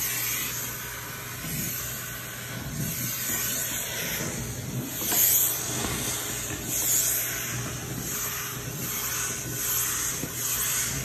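Electric pet clippers running with a steady hum and hiss, shearing an Angora cat's long coat down short. The sound swells briefly twice, around five and seven seconds in.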